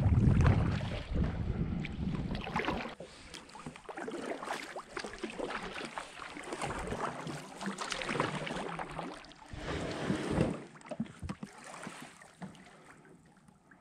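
Paddle strokes splashing in water from a small paddled boat, an irregular stroke every second or two, with wind buffeting the microphone for the first few seconds. The sound fades out near the end.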